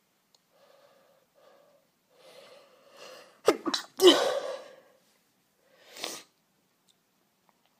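A woman sneezing from cat allergy. Soft breaths build into gasping in-breaths, then a loud sneeze comes about three and a half seconds in, and a shorter burst of breath follows about two seconds later.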